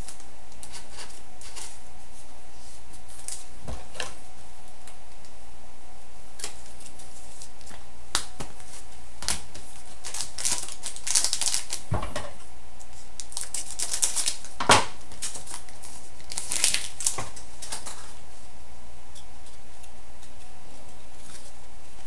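2011-12 Upper Deck SPx hockey trading cards being handled and flipped through: scattered light clicks and rustles of card stock, busiest in the middle, with one sharper snap about two-thirds of the way in.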